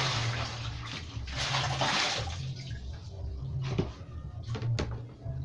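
Water poured from a plastic basin into another plastic basin, a loud splashing rush that dies away about two seconds in. A few light knocks follow.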